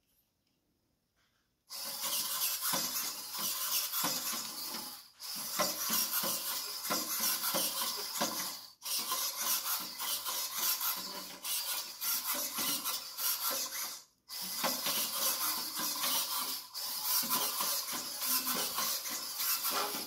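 Quadruped robot's twelve Lynxmotion LSS smart servos whirring and rasping as it walks and turns, with its feet tapping on the tile floor. The sound starts about two seconds in and runs in bouts, breaking off briefly three times.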